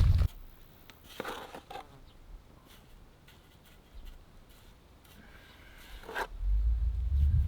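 Faint scrapes and taps of bricks and mortar being worked. A loud low rumble cuts off just after the start and comes back about six and a half seconds in.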